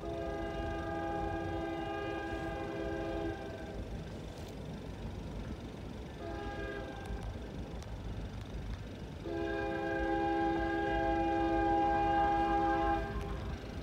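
CN locomotive's multi-note air horn sounding three blasts, long, short, long, over the low rumble of the passing train.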